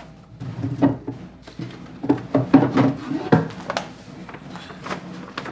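Wooden cabinet being opened and a rolled scroll taken out of it: a run of short knocks and clicks, with some low, indistinct voices among them.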